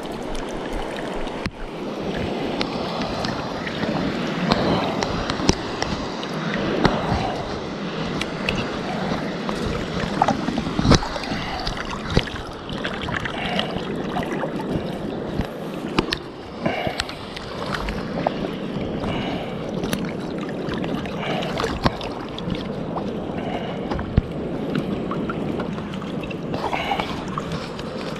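Seawater washing and sloshing at the shoreline in uneven surges, with scattered sharp clicks and knocks.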